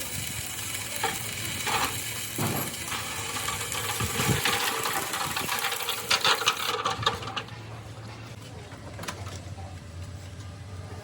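Metal parts and tools clinking and rattling in a few sharp knocks, over a steady hiss that cuts off suddenly about seven seconds in.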